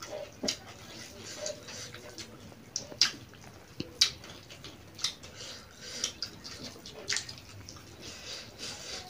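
Close-up eating sounds: chewing and mouth smacks, with fingers working through rice and chicken on a shared plate. A few sharp clicks stand out, the loudest about three and four seconds in.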